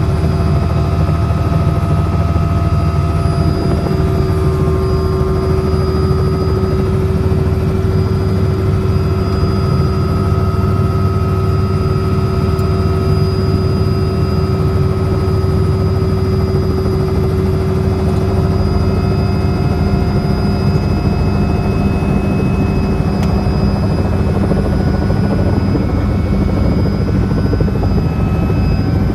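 Helicopter engine and rotor running, heard from inside the cabin: a loud, steady drone with thin steady whining tones above it.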